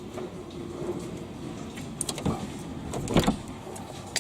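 A few sharp knocks and clicks of hand tools working on the engine bay, in two clusters about two and three seconds in, over a faint steady hum.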